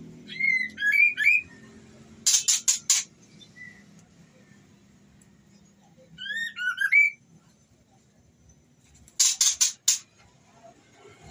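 Female white-rumped shama (murai batu) calling in breeding condition, the call used to draw and excite a male. Two short phrases of rising whistled notes, each followed about a second later by a quick run of four harsh, rasping notes.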